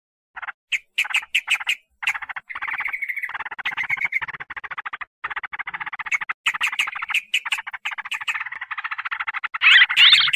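Yellow-vented bulbul (trucukan) calling in rapid chattering notes, played as a lure recording to draw wild birds. The notes come in short bursts at first, then run almost without a break from about two seconds in, and are loudest near the end.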